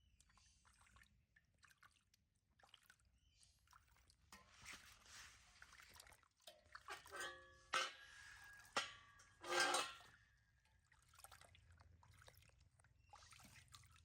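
Bath water splashing and dripping around a baby monkey being washed, with a few louder, sharper splashes between about seven and ten seconds in.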